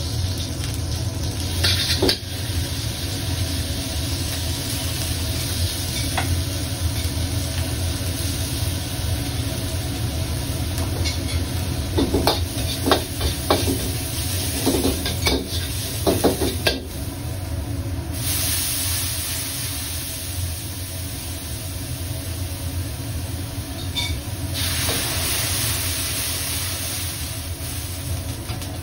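Okra stir-fry sizzling in a pan, with a spatula scraping and clicking against the pan in a run of strokes around the middle. The sizzle grows louder in the second half, over a steady low hum.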